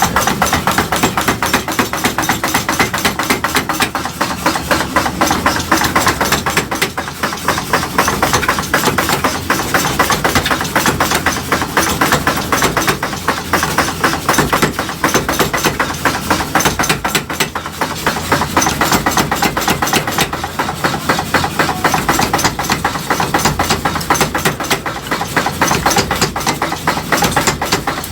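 Fast, steady run of metal hammer blows, several a second, of steel being forged into tongs.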